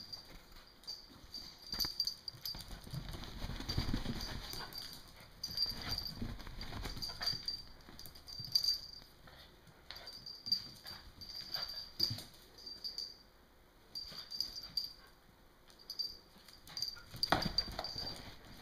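A beagle and a poodle play-fighting on a tile floor: irregular clicks and scuffles of their claws and paws on the tiles, with a louder scuffle near the end.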